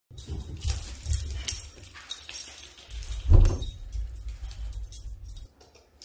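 A dog moving about a house: light jingling and clicking from its collar tag, with dull thumps from its footsteps and from handling, one louder thump about three seconds in.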